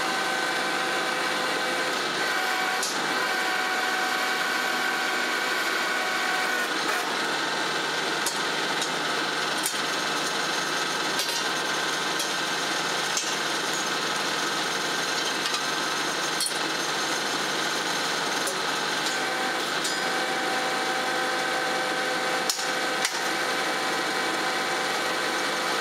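Balfor A18 C vertical hydraulic log splitter, driven by the tractor it is mounted on, running steadily with a whine whose pitch shifts a few times as the ram works. Several sharp cracks and knocks of a log splitting and wood pieces dropping break in.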